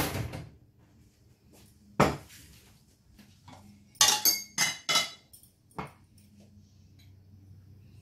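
Utensils clinking and knocking against a stainless steel cooking pot: a knock at the start, another about two seconds in, a quick run of four ringing clinks around four to five seconds, and a last one near six seconds.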